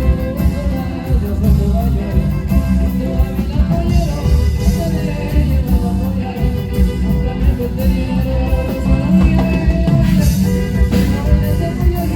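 A live band playing amplified music: a steady beat in the bass and drums with a melody line carried over it.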